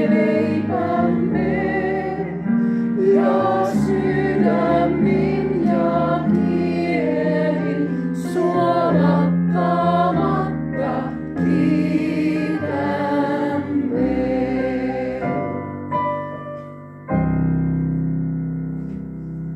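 A Finnish hymn sung by a woman and a group of voices together, accompanied by a Roland FP-80 digital piano. The singing stops about fourteen seconds in, the piano plays a few closing chords, and a final chord is struck about three seconds before the end and left to fade.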